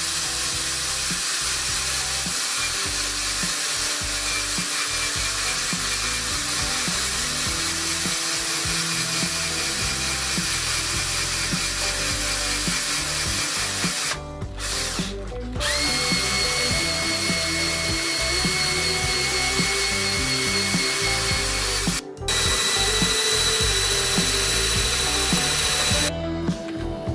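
A cordless drill drives the spindle of a miniature lathe, turning its change gears and leadscrew to feed the carriage. It runs steadily in three spells, stopping briefly about 14 seconds in and again about 22 seconds in. In the later spells a steady high whine sounds over the running.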